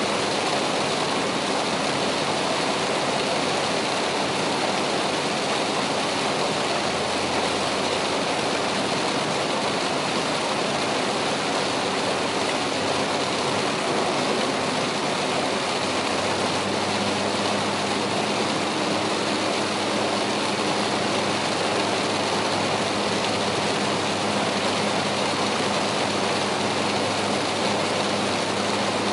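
Heavy rain on a moving car's body and glass and its tyres on the streaming-wet expressway, a dense steady rushing noise heard inside the cabin, with a low steady hum from the engine and road beneath it.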